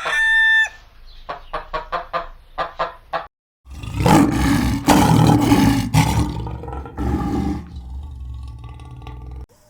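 A rooster's crow ends, followed by a string of quick clucks from a chicken. After a short break, a big cat gives a long, loud, rough roar that fades near the end.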